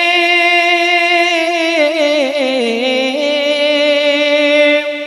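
A man's solo voice singing a naat, holding one long drawn-out note on the word "ne". The note dips in pitch about two seconds in, comes back up a second later, and fades just before the next line.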